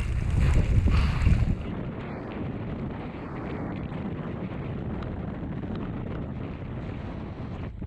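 Blizzard wind buffeting the microphone, heavy and loud for the first second and a half, then settling to a steadier, quieter rush.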